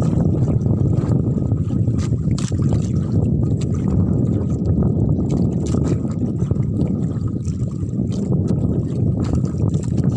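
Outrigger fishing boat under way: a steady low engine drone mixed with wind on the microphone and water rushing past the hull.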